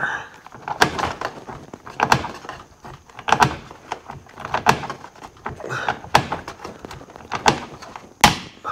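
Hand pop-rivet gun being squeezed on a rivet in a corrugated metal wall panel. It gives sharp metallic clacks at an even pace, about one every second and a quarter, and the last clack near the end is the loudest.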